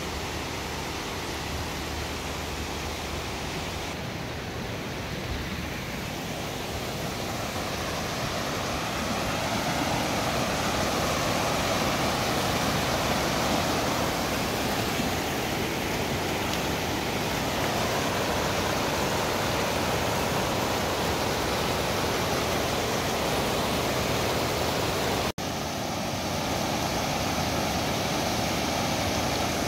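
Creek water rushing over rocks and small cascades: a steady rush that grows louder about ten seconds in, broken by a brief drop-out near the end.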